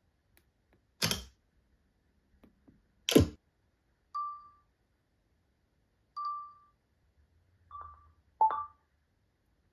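Two short camera shutter clicks, then the iPhone camera's video-recording start and stop beeps: one pair two seconds apart from the iPhone 5 on iOS 6, then a second pair close together near the end from the iPhone 12 mini on iOS 17, the last beep slightly lower.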